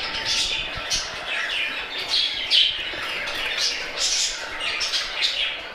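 A roomful of caged lovebirds and budgerigars chirping and squawking, with many short high calls overlapping.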